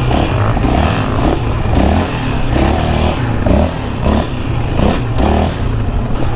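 Yamaha Raptor 700R sport quad's single-cylinder engine running under throttle on a bumpy sand track, its pitch rising and falling as the rider opens and closes the throttle.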